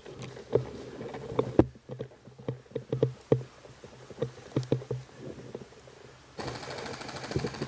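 Irregular knocks, thuds and rustling from an airsoft gun-mounted camera being carried as the player moves, with a steady rasping hiss for the last second or so.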